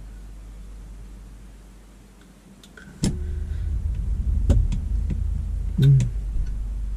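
Low car rumble that fades, then comes in abruptly and much louder about three seconds in, with a few sharp clicks over it.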